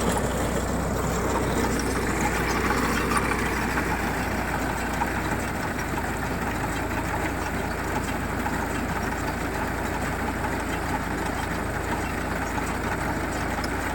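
Tractor engine running steadily while it pulls and drives a baler through a field trial.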